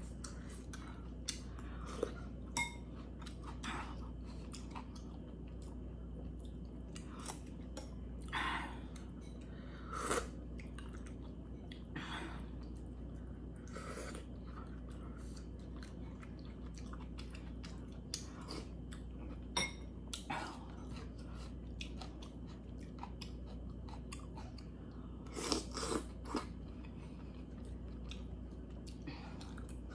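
Close-miked chewing of soft food, with many small wet mouth clicks and a few louder short sounds, the loudest near the end, from sipping soup off a spoon and the spoon against the steel pot.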